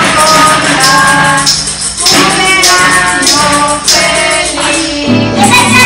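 Acoustic guitar strummed with a snare drum played with sticks and a tambourine jingling about twice a second, under voices singing: a home family band.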